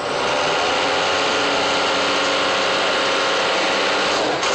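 Triple-turbo diesel engine of a Ford Mustang drag car running loud at steady high revs on the start line, with a brief drop near the end.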